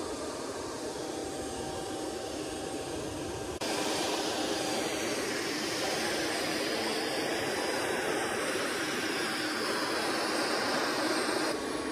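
Steady jet turbine noise, a rushing hiss with a faint steady whine, growing louder about three and a half seconds in.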